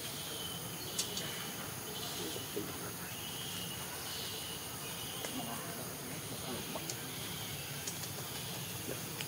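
Outdoor background noise: a steady hiss with a faint high buzzing that comes and goes every second or so, and a few small clicks.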